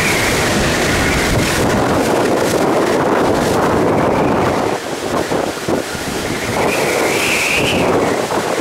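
Hurricane-force wind gusting hard against the microphone, with heavy rain. A high whistle rises over the rush near the start and again near the end, and the gusts ease briefly about halfway through.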